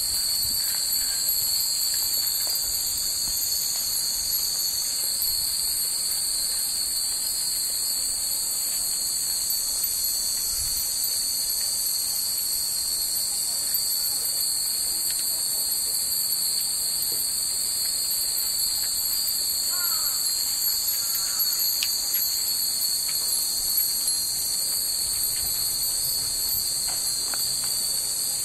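A steady, unbroken chorus of cicadas buzzing at high pitch, with now and then a faint light ring from the hanging wind chimes.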